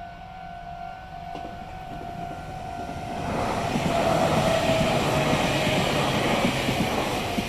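A Japanese level-crossing warning bell ringing. About three seconds in, a Meitetsu Nagoya Main Line train passes through the crossing, and its loud running noise drowns out the bell.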